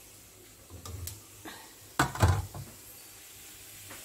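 A couple of light knocks, then a loud clatter of several sharp knocks about two seconds in, as a steel spice box is lifted out of a kitchen drawer and set down by the stove.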